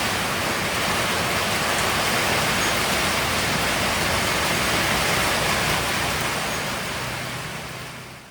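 Steady rain, a dense even hiss, fading out over the last two seconds.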